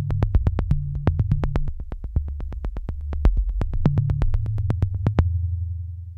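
Electronic background music: a quick steady beat of sharp percussive ticks over a low synthesizer bass line. The beat stops about five seconds in and the last bass note fades away.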